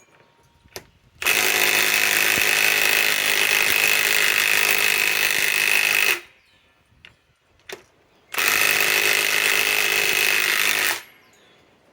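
Milwaukee M18 Fuel Gen 2 mid-torque cordless impact wrench hammering a large lag screw through a 15/16 socket, in two runs of about five and three seconds with a short pause between. The lag stops short of full depth: the wrench cannot drive it any further.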